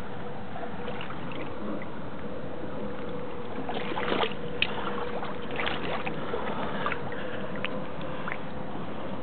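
Shallow water splashing and sloshing as a barbel is held and handled in the river's edge, a cluster of short splashes about halfway through. Under it runs steady background noise with a faint steady hum.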